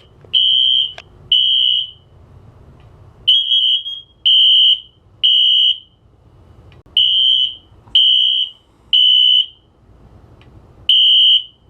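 Fire alarm sounder beeping a high, pure tone in the temporal-three pattern: three half-second beeps about a second apart, then a pause of about a second and a half, repeating. This is the standard evacuation signal.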